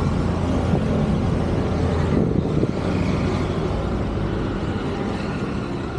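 Street traffic: motor vehicles running and passing, a steady low rumble of engines and tyres.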